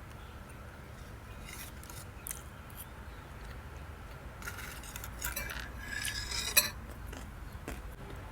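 Cutlery clinking and scraping against a plate as food is picked up: a few scattered clicks, then a denser run of clinks and scrapes ending in one sharp clink about six and a half seconds in.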